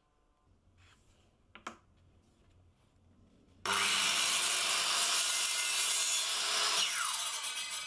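Circular saw with a 165 mm blade crosscutting a short piece of wood, starting suddenly a little past halfway after a quiet stretch with one small click. Near the end the pitch falls as the blade spins down.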